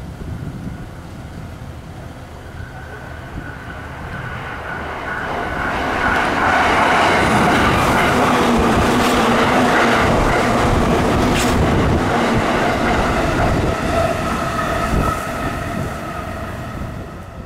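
Electric train on the JR Yokohama Line running through the station alongside the platform. The rumble and wheel noise build, stay loud through the middle with a steady whine over them, then ease off near the end.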